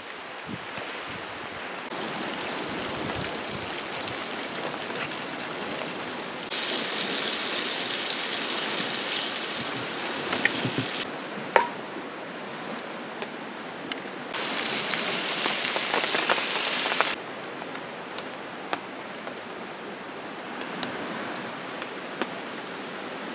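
Steady hiss of rain, alternating with onions and burger patties sizzling in a skillet over a campfire. The hiss jumps louder and quieter at a few sudden changes, with a few sharp clicks.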